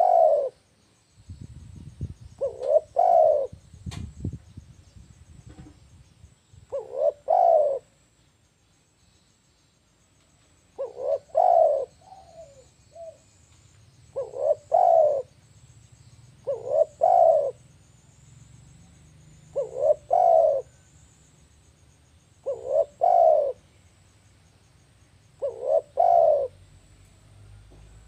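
Spotted dove cooing: a short phrase of two or three notes, repeated about nine times, roughly every three seconds. There is a low rumble and one sharp tap in the first few seconds.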